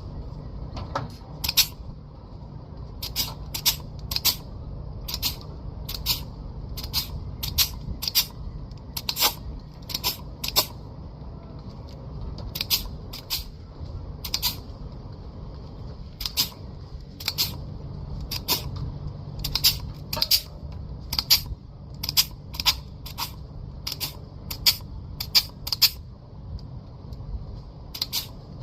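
Hand pruning shears snipping ash twigs and branches: sharp metallic clicks, often in quick pairs, coming irregularly about once every second or two. A low steady rumble runs underneath.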